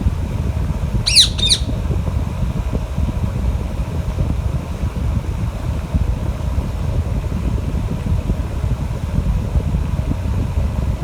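A parrot gives two quick shrill squawks about a second in, over a steady low rumble of wind on the microphone.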